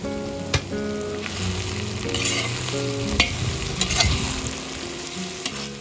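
Food sizzling and frying in a kazan as it is stirred with a long utensil, with a few sharp clicks of the utensil striking the pot.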